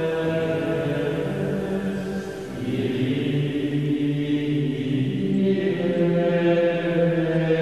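Monastic chant: voices singing slow, long-held notes, moving to a new note twice.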